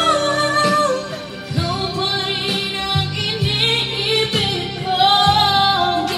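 A woman singing into a corded karaoke microphone over a music backing track. She holds long notes.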